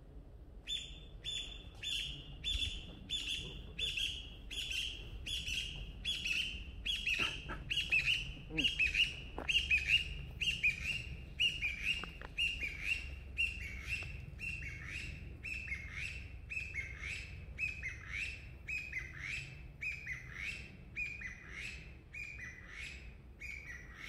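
An animal's high call repeated steadily about twice a second, beginning suddenly and slowly dropping in pitch over the run, with a few fainter chirps mixed in near the middle.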